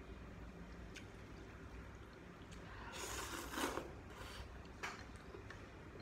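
Noodles slurped off chopsticks: one loud slurp about three seconds in and a shorter one soon after. A few light clicks of chopsticks and spoon against a ceramic bowl come before and after.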